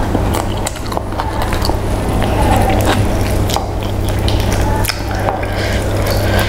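Mouth sounds of eating: chewing with many short wet smacks and clicks, along with soft squelches of rice being mixed by hand, over a steady low hum.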